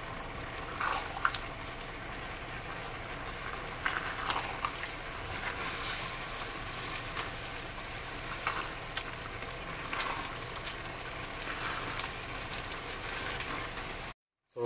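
Vegetables and chicken bubbling on high heat in a milky, cornstarch-thickened sauce with added water, a steady hiss broken by occasional short clicks and scrapes of stirring. The sound breaks off to silence just before the end.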